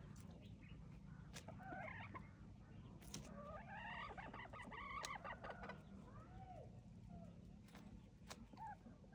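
Domestic hens clucking faintly while feeding, with a busy run of short calls around the middle and a few sharp taps.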